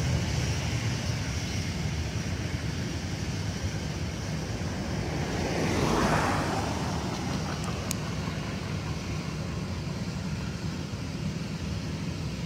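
A car passing close by, its noise swelling and fading about halfway through, over a steady low rumble.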